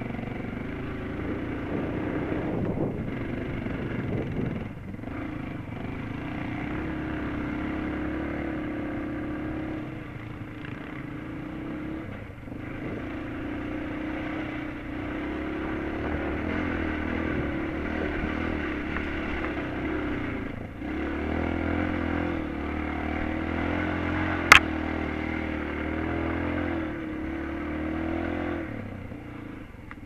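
Enduro motorcycle engine running under load on a dirt trail, its note rising and falling with the throttle and dipping briefly a few times. One sharp knock late on.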